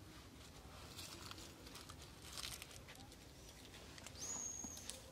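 Faint rustling and scratching of long-tailed macaques grooming and shifting on the rock, with one short, high-pitched squeak about four seconds in.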